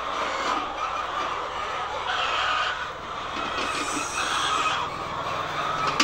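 A flock of hens clucking and calling without a break, with a few louder, higher calls about two and four seconds in.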